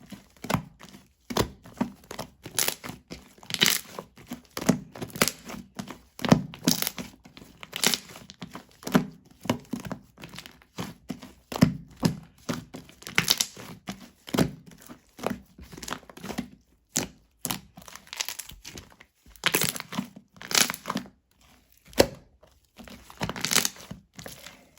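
Slime being squeezed, stretched and pressed by hand: an irregular run of sticky crackling pops and squelches, a few each second.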